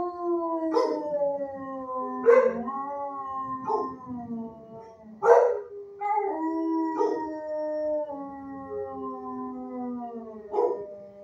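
Kennelled shelter dogs howling in long, overlapping tones that slide slowly down in pitch, with sharp barks breaking in about six times.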